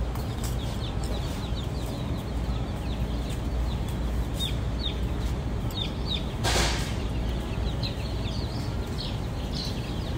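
Baby chicks in a store brooder peeping: many short, high, falling chirps overlapping over a steady low hum. About six and a half seconds in comes a brief burst of rustling noise.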